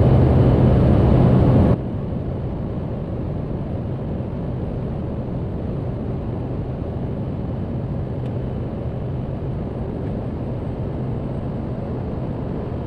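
Steady cockpit drone of a Cessna Grand Caravan's single turboprop engine and airflow in flight. A louder, hissier layer with a low hum cuts off suddenly about two seconds in, leaving an even, duller drone.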